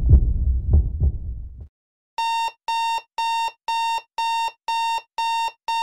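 A low rumble with dull thumps fades out in the first second and a half. After a brief silence, an alarm clock starts beeping: a steady high beep repeated about twice a second.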